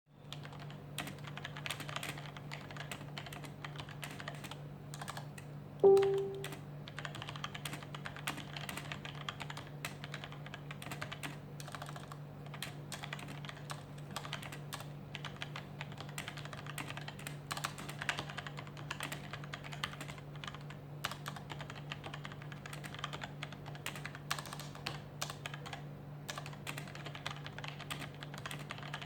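Continuous typing on a SteelSeries Apex M800 mechanical keyboard with QS1 low-profile linear switches: a steady stream of quick key clicks and clacks. About six seconds in, a brief loud tone sounds, over a steady low hum.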